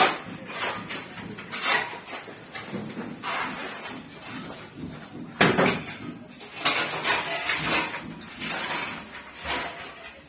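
Irregular knocks, clanks and scraping of hard objects being handled, several sharp hits spaced a second or two apart with noisier scrapes between them.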